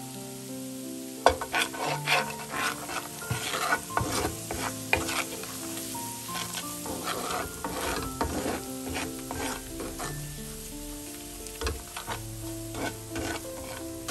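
Food sizzling in a frying pan while a utensil stirs and scrapes it in irregular strokes, starting about a second in, with soft background music underneath.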